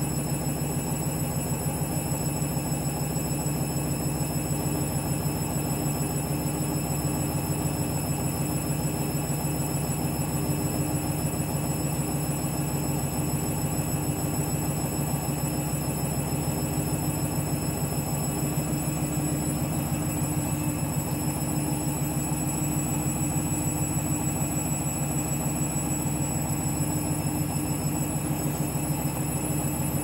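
Candy Grand'O Vita front-loading washing machine spinning steadily at about 400 rpm with a bulky duvet load that is a bit out of balance, a constant motor and drum hum with no change in speed.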